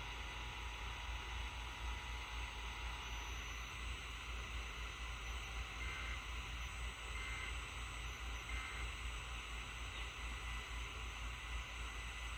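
Steady hiss and low hum of AM radio reception noise with no programme audio, broken only by a few faint short tones about halfway through.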